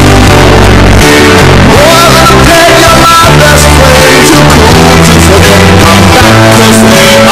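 Loud rock-style music with guitar.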